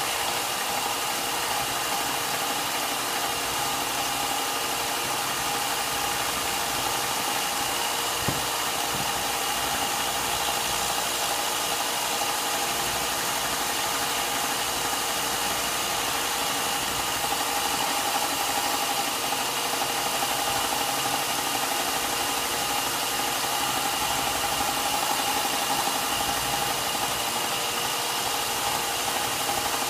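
Electric air blower running steadily: an even rush of air with a steady high whine. A single knock about eight seconds in.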